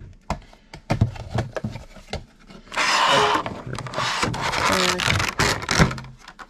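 Handling of a Funko Pop vinyl figure's cardboard box and clear plastic tray: taps and knocks, a burst of crinkling plastic about three seconds in, then more rubbing and scraping of the packaging.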